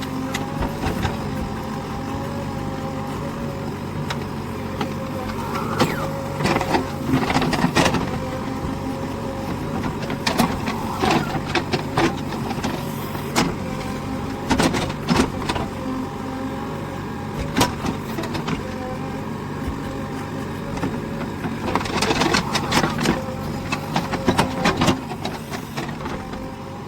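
JCB backhoe loader working earth: its engine and hydraulics run steadily with a constant whine, while the bucket and arm clank and knock again and again, in clusters.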